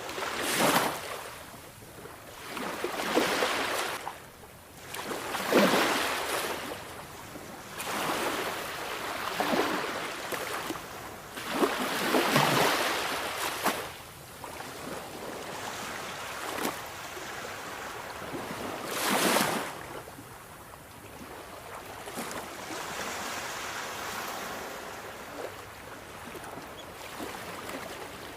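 Sea waves breaking and washing on a shore, in swells of surf every few seconds, with a last strong wave about two-thirds of the way in and a gentler, steadier wash after it.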